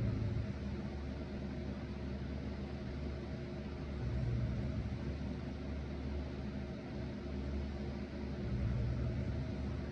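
A person snoring, three low snores about four seconds apart, over the steady hum of an electric fan.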